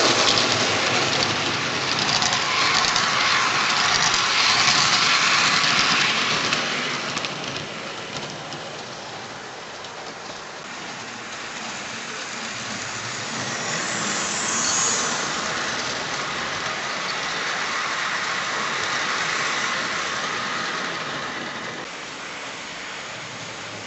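00 gauge model train, a Stanier 8F locomotive hauling car-carrier wagons, running along the track with a steady rushing rattle of wheels and motor. It is loudest for the first six seconds or so, drops away, and swells again more softly about halfway through.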